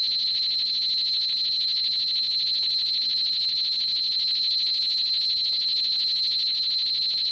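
Hedorah monster sound effect: a steady, high-pitched electronic whine held at one pitch without change.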